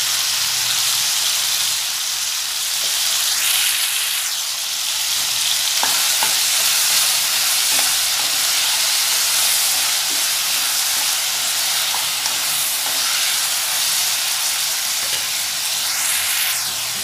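Shallots, garlic, green chillies and chopped tomatoes sizzling steadily in hot oil in a metal kadai, stirred with a spatula, with a few light clicks and scrapes of the spatula against the pan.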